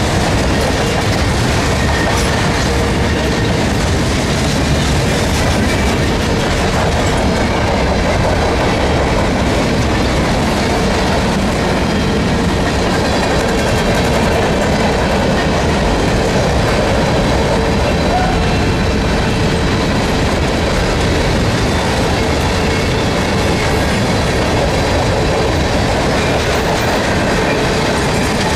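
Freight train cars rolling past: a steady, loud rumble of steel wheels on the rails that holds evenly throughout.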